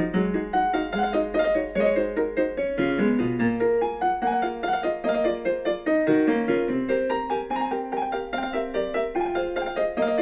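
Background piano music: a steady run of quick notes with no pause.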